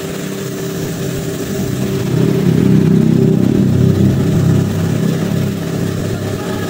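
The Energy Cube machine's motor running with a steady pitched hum. It grows louder about two seconds in and eases off again after about five seconds.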